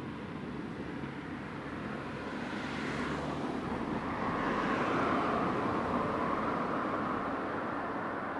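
A car passing by: road noise that swells to a peak about five seconds in and then slowly fades.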